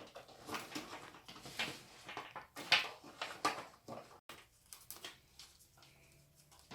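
Irregular rustling, scraping and light knocking of hands handling computer parts and their packaging, busiest in the first four seconds and sparser after a brief break.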